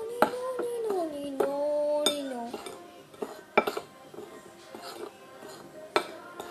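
A spoon clinking and scraping against a dish while stirring dry flour and sugar, in sharp irregular knocks. A hummed tune runs over the first two and a half seconds.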